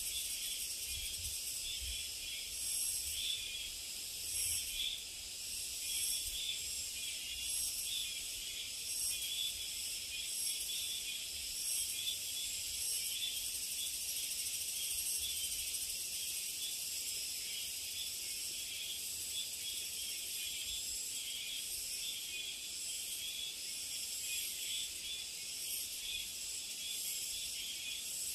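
A steady, high-pitched chorus of summer insects singing, a shrill, pulsing trill.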